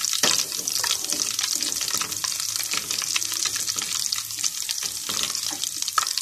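Fennel seeds and cardamom pods sizzling in hot ghee in a steel pot, a steady hiss full of tiny crackles, while a silicone spatula stirs them.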